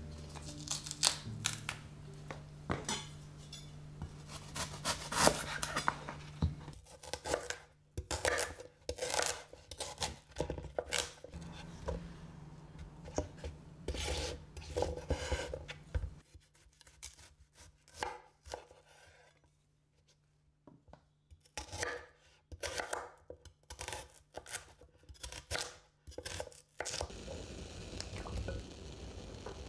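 A kitchen knife chopping rhubarb stalks on a wooden cutting board: a long run of sharp, irregular strikes with a short pause partway through. Before it, the softer tearing and rubbing of stringy skin being peeled off a stalk by hand.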